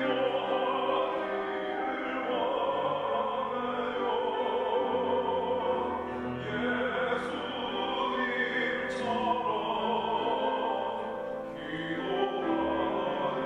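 A solo singer performing a worship song over instrumental accompaniment, with long held sung notes.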